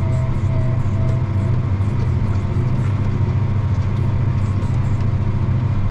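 Tractor engine running steadily under load while pulling a field cultivator, with rattling from the bumpy ride. A short pulsing tone repeats about twice a second for the first second and a half.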